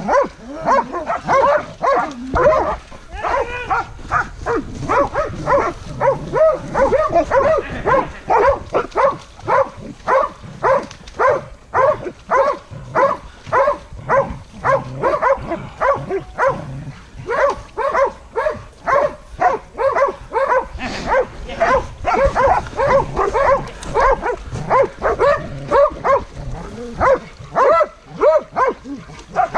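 Hunting-dog barking, short barks coming two or three a second without a break: bay-barking at a wounded wild boar the dog is holding at bay.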